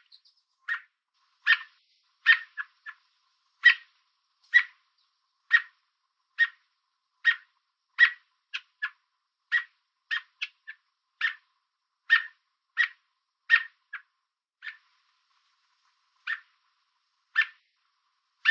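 American robin giving short, sharp chirp calls, a little more than one a second, with some in quick pairs. The uploader takes the calling for a warning to stay away.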